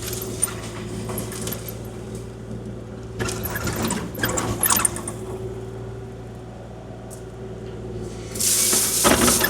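Kubota KX040-4 mini excavator's diesel engine running steadily while the bucket works. There are two loud rushes of dirt scraping and spilling from the bucket, one about three seconds in and a louder one near the end.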